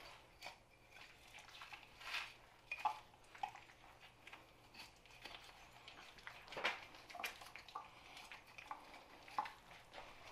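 Knife cutting and prying raw deer hindquarter meat apart along the muscle seams on a plastic cutting board: faint wet slicing and handling of the meat, with scattered light taps and knocks of the knife and meat against the board.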